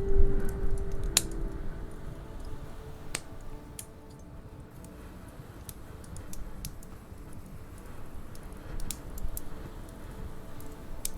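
Wood fire in a fireplace crackling: sparse, irregular sharp pops and snaps over a low, soft rumble of the burning logs.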